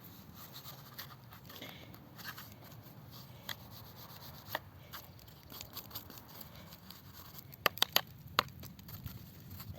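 A paintbrush scrubbing the inside of a chainsaw's sprocket cover: soft rubbing and scratching, with scattered light clicks and a quick cluster of three or four sharp clicks, likely the cover being knocked or tapped, near the end.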